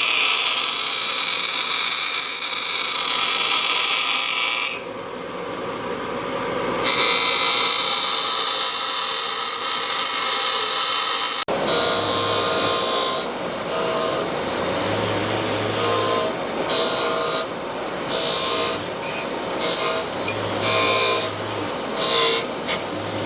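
Electric grinder with a wire wheel taking the rough edges off a rough-cut steel bracket: a steady high hiss that dips about five seconds in. About halfway through it changes abruptly and comes and goes in short bursts.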